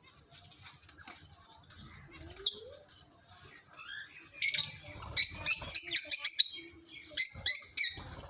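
A flock of lovebirds chattering: a steady high twittering with a sharp shrill call about two and a half seconds in, then a rapid string of loud shrill chirps from about halfway through to the end.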